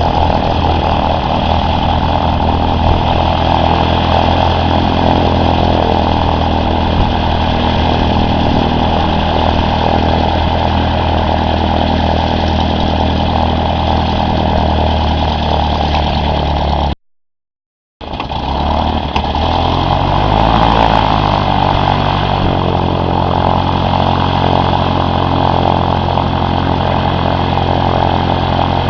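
Cessna 152's four-cylinder Lycoming O-235 aircraft engine running steadily. Just over halfway through the sound cuts out for about a second; after that the engine speed shifts up and down, then settles at a new steady pitch.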